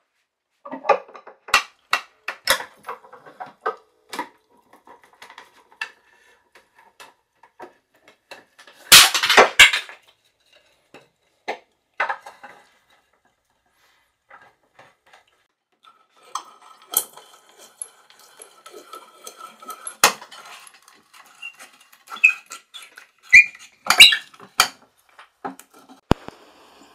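Workshop handling sounds: scattered knocks and clinks of tools and wood being moved about on a workbench, with a short loud clatter about nine seconds in and another near the end.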